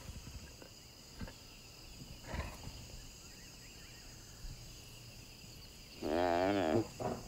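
A cheetah pinning a springbok in the dust: faint scuffles, then, about six seconds in, a loud wavering animal call lasting under a second.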